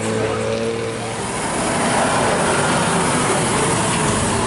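Bus passing on the road, its engine and tyre noise swelling about a second and a half in and staying loud.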